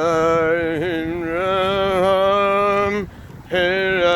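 A man singing in long, drawn-out held notes, with a brief breath break about three seconds in.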